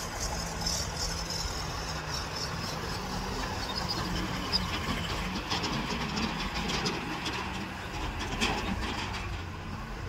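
Diesel engines of a backhoe loader and farm tractors running with a steady low hum, with scattered sharp knocks.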